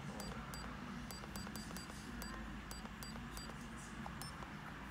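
Faint, uneven ticking clicks, about two to three a second, over a low steady hum.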